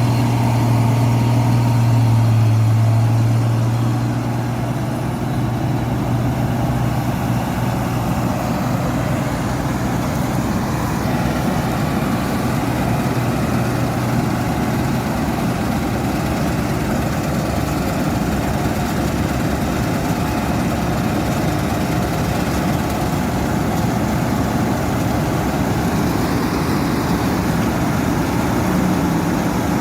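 New Holland 8070 combine harvester's diesel engine running steadily. A strong low hum in the first few seconds eases off about four seconds in, leaving an even mechanical running noise.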